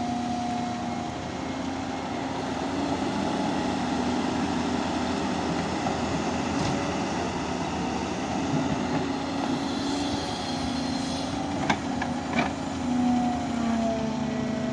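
Heavy construction machine's diesel engine running steadily, with a held whine that wavers slightly in pitch. Two sharp metallic knocks come about three-quarters of the way through.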